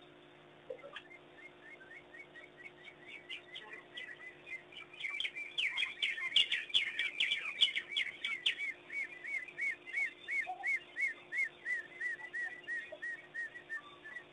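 A pack of African wild dogs twittering: high, bird-like chirps repeated two to three times a second, crowding into many overlapping voices in the middle and thinning to one regular series near the end.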